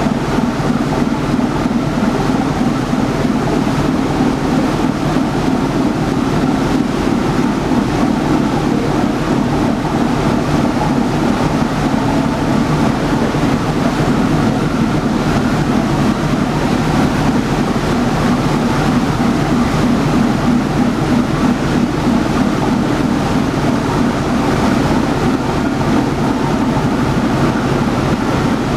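Inland cargo ship's diesel engine running steadily under power, its propeller churning the water as it pulls out of a lock chamber.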